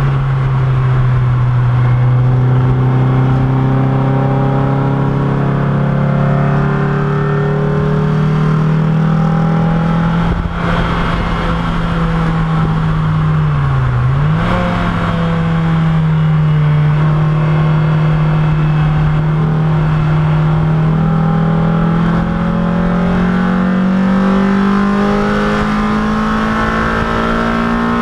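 Race car engine heard from inside the cockpit under way on track, running at a high, nearly steady pitch that climbs slowly. There is a brief dip and recovery in pitch about halfway through, with a steady rush of wind and road noise underneath.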